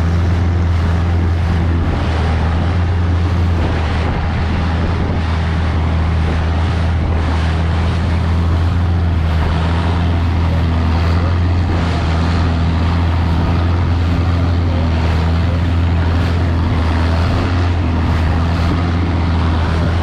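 Long-tail boat's engine running steadily under way, a loud, unchanging low drone, over the rush of wind and water.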